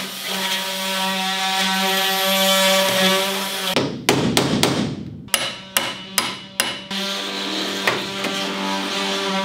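A power tool motor runs steadily while rivets are worked out of a school bus's steel body panels. A little under four seconds in, it stops and a hammer strikes a punch on the rivets about eight times in quick succession, sharp metal knocks. Then the motor hum resumes, with one or two more knocks.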